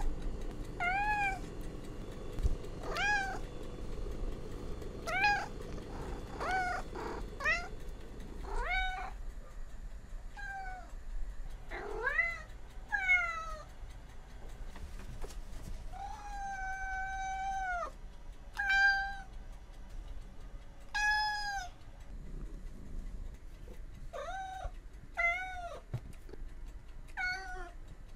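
Domestic cats meowing: about twenty separate meows in a row, mostly short and arching in pitch. One long, even meow of about two seconds comes just past the middle.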